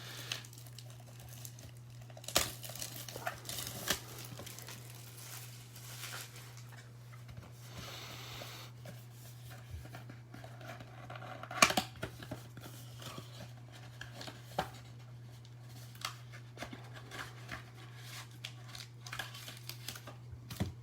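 Plastic and foil packaging of trading card packs being torn open and crinkled, with cards and wrappers handled in scattered crackles and sharp clicks, the sharpest near the middle. A steady low hum runs underneath.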